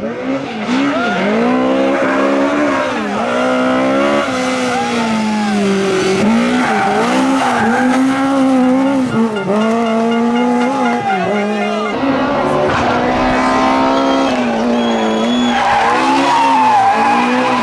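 Rally cars driven hard through corners, cut together one after another: the engines rev up and fall away again and again with gear changes and lifts of the throttle, with tyre squeal. Among them are a Lada saloon and, from about twelve seconds in, a BMW 3 Series Compact.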